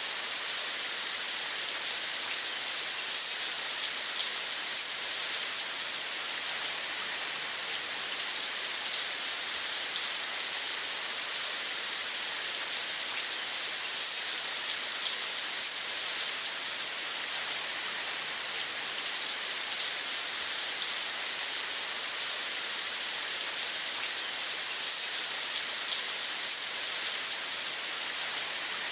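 Steady rain falling, an even patter of drops with no change in strength.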